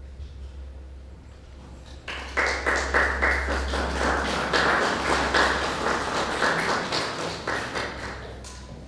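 Audience applauding, starting about two seconds in and dying away near the end, over a low steady hum.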